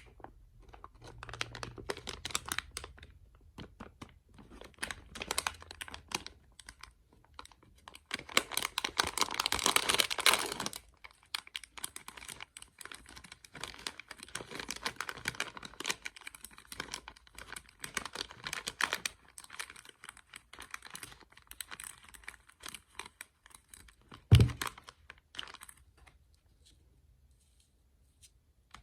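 Small surprise-bag packaging being handled, crinkled and torn open by hand, in runs of rapid clicky rustling. One sharp, loud thump comes a few seconds before the end.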